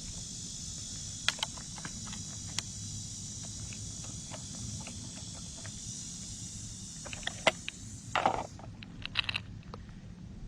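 A steady high-pitched insect buzz with scattered light clicks and rustles from handling. The buzz cuts off suddenly near the end, around a few louder rustles.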